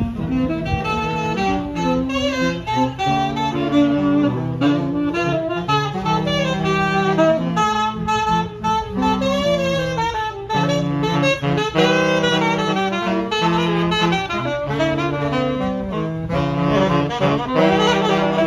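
A trio of saxophones playing a tune together in harmony, several held notes sounding at once and changing chord every second or so.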